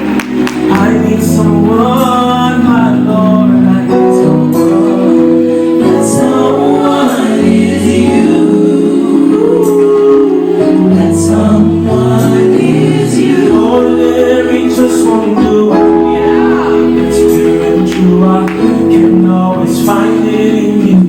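Live gospel worship music: a band playing with voices singing over it.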